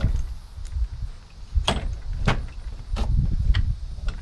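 Metal knocks and clunks as a 150cc pit-bike engine is shifted by hand into a mini Jeep's frame. There are four sharp knocks in the second half, about half a second apart, over low thumps.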